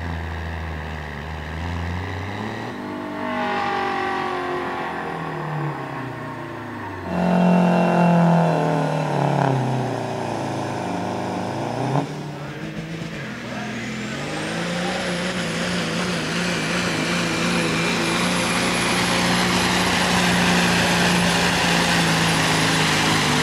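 Diesel semi-truck engines under full load pulling a weighted sled, their pitch sliding down and back up as they bog and rev. The sound changes abruptly several times. In the latter half one engine runs loud and steady with a high whistle over it.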